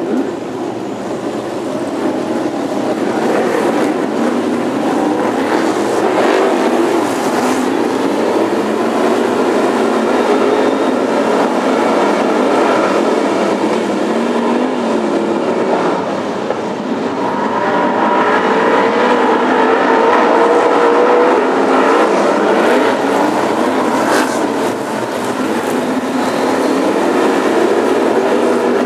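A pack of BriSCA F1 stock cars racing on a shale oval, many engines running at once with their notes rising and falling. The engines get louder over the first few seconds as the pack accelerates away.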